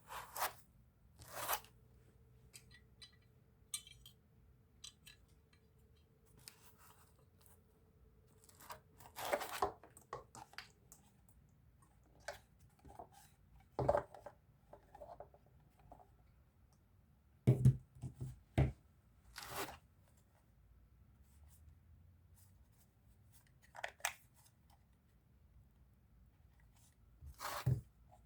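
Scattered clicks, knocks and rustling of objects being handled, with a few sharper knocks about two-thirds of the way through; no tool motor is running.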